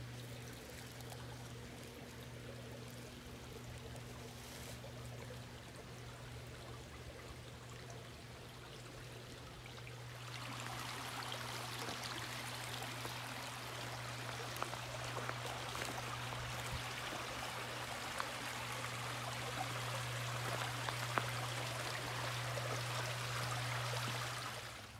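Shallow woodland creek trickling and babbling over mossy rocks, a steady rush of water that gets louder about ten seconds in. A steady low hum runs underneath.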